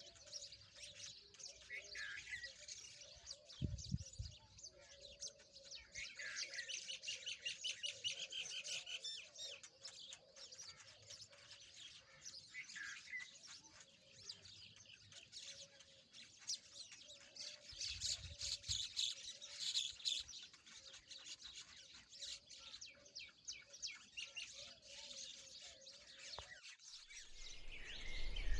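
Rosy-faced lovebirds chirping, a dense run of rapid, high, shrill chirps that goes on without a break, with a steady faint hum underneath that cuts off near the end.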